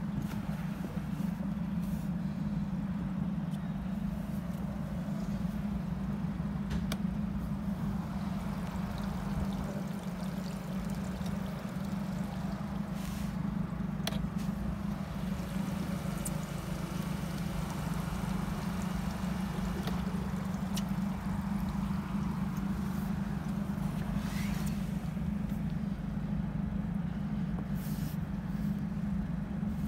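Twin Yamaha outboard engines idling with a steady low hum.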